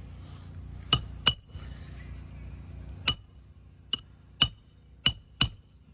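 Hammer striking nails during a shingle roof repair: seven sharp metallic taps, each with a brief ring, spaced irregularly.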